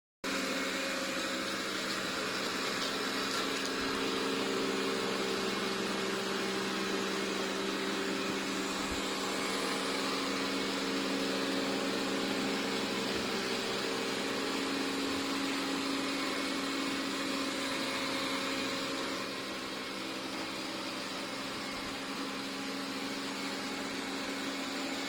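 Steady mechanical hum with an even hiss, unchanging throughout and cutting off suddenly at the end.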